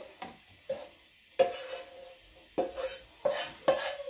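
Kitchen utensil knocking against dishware about five times as cooked vegetables are mixed into cooked vermicelli, each knock ringing briefly.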